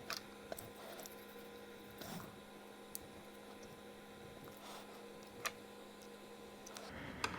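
Faint, scattered clicks and ticks from handling the thermal printhead assembly's spring and aluminium bar, with the strongest click about five and a half seconds in. A low steady electrical hum runs underneath and stops shortly before the end.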